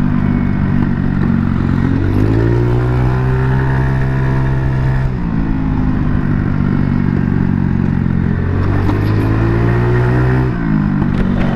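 A Kuba Blueberry 50cc scooter's engine running through an aftermarket Akrapovic exhaust while riding. The engine note climbs and holds, drops as the throttle is eased about five seconds in, climbs again, then drops and picks up once more near the end.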